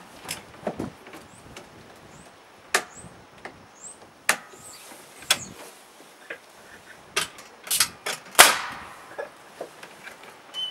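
Pneumatic nail gun firing nails into new timbers on a shed floor: a series of sharp shots, irregularly spaced about a second or so apart. The loudest comes near the end and is followed by a short hiss of air.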